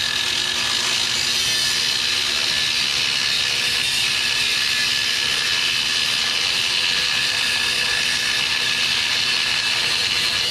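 Handheld cut-off wheel cutting through the steel frame rail of a 2001 Ford Ranger: a steady high whine with a grinding hiss, holding at one pitch.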